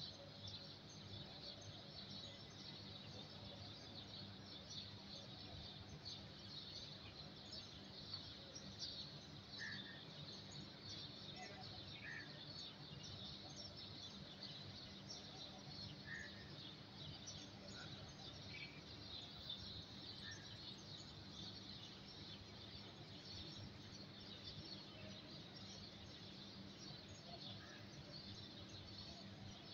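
Faint dense chorus of many small birds chirping, with a few separate chirps standing out now and then, over a steady low hum.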